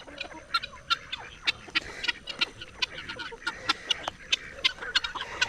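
Chickens clucking and chirping softly, with many short sharp clicks scattered through, several a second.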